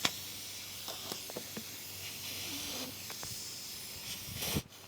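Air hissing steadily out of a punctured tire's nail hole, starting with a sharp click and cutting off about four and a half seconds in, with a few light knocks from the tool working in the hole.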